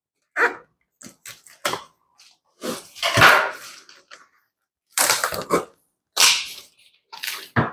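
Packing tape being peeled and ripped off a cardboard box: a string of short tearing bursts with a few light crackles between them, the loudest about three seconds in.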